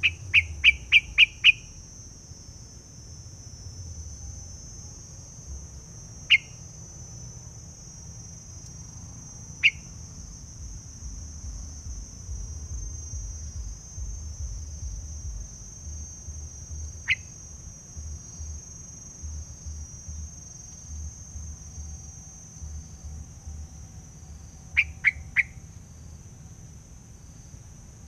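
Streak-eared bulbul (decoy bird) giving short, sharp calls: a quick run of about six notes at the start, then single notes several seconds apart, and three quick notes near the end. A steady high insect drone runs underneath.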